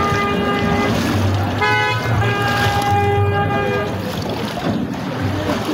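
Wading through shin-deep floodwater, with water splashing and sloshing. Over it a steady, horn-like pitched tone is held until about a second in, briefly changes pitch, then sounds again from about two to four seconds in.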